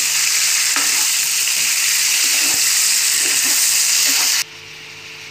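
Chicken pieces sizzling loudly as they fry in hot oil in a pan. The sizzle cuts off abruptly about four seconds in, leaving a much quieter background.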